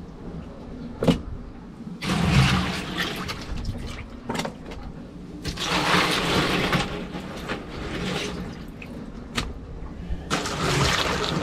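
A hand digging through ice slush and brine in a cooler, water sloshing and ice chunks rattling in three bursts, about two, six and eleven seconds in. A few sharp knocks fall in between.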